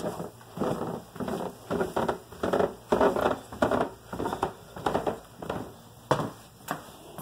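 Footsteps on a hardwood floor, a steady walking rhythm of about two steps a second, loudest in the middle.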